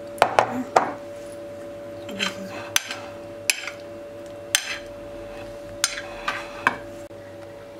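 Metal serving utensils clinking and tapping against a china plate and a glass bowl as salad is served: a series of sharp, irregular clinks over a steady hum.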